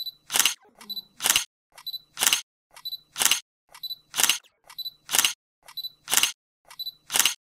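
Camera shutter sound effect firing about once a second, eight times in a row. Each shot is a light click followed at once by a louder snap.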